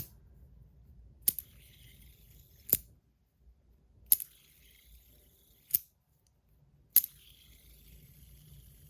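Five sharp, light metallic clicks, spaced about a second and a half apart, from a metal fidget spinner being handled.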